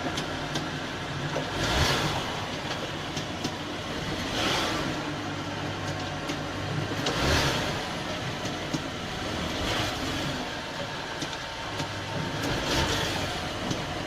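Suzuki Grand Vitara driving, with steady road and drivetrain rumble and a broad swell about every two and a half seconds. No click comes from the freshly greased driveshaft.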